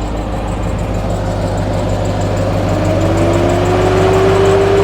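Ford Bronco Raptor's twin-turbo V6 running while the steering is turned to full lock, a test for a front-suspension noise. From about three seconds in, a steady tone rises slightly in pitch and grows louder as it comes under load.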